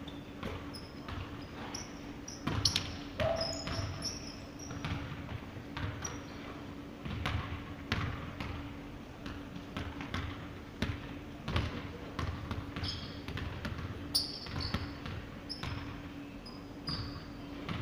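A basketball bouncing and being dribbled on a hardwood gym floor, a run of irregular sharp thuds, with short high-pitched squeaks of sneakers on the court in between. A steady low hum runs underneath.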